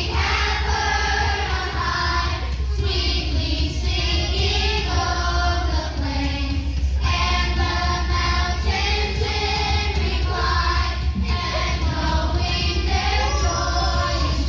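A choir singing with children's voices, the sung notes continuing without a break.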